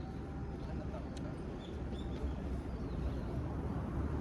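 A steady low rumble, with a few faint, short, high bird chirps near the middle.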